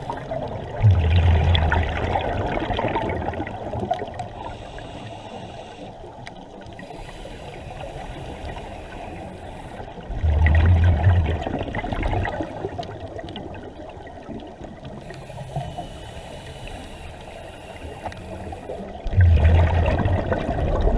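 Scuba regulator exhalations underwater: three bursts of bubbling, about nine seconds apart, each lasting a couple of seconds, with a quieter steady water hiss between breaths.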